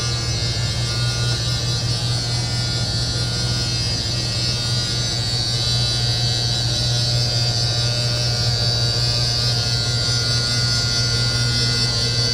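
Electric slide-out motor of a Forest River FR3 32DS motorhome running steadily as the slide room retracts: a constant low hum with a high whine above it.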